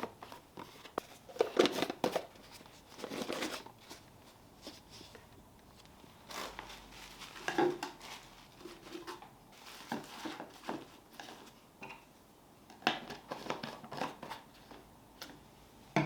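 Kitchen handling sounds: irregular clicks, snips, rustles and light knocks, as of packaging and utensils being handled during food preparation.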